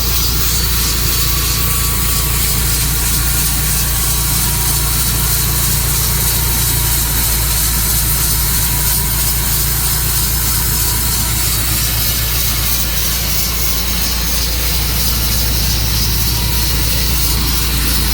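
Tru-Cut sawmill's engine running steadily.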